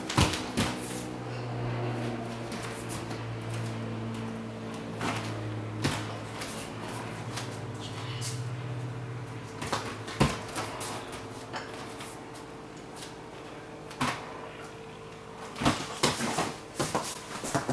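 A gymnast's hands, feet and body thudding onto a folding foam tumbling mat: single dull thumps a few seconds apart, then several in quick succession near the end. A faint steady hum runs underneath.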